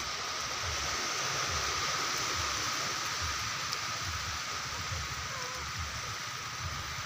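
Steady rushing shoreline ambience at the edge of calm shallow sea water, with an uneven low rumble underneath.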